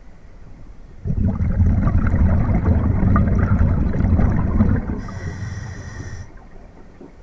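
A scuba diver breathing out through a regulator: a burst of exhaled bubbles rumbles and gurgles for about four seconds, starting about a second in. It is followed by a shorter hiss as the diver breathes in.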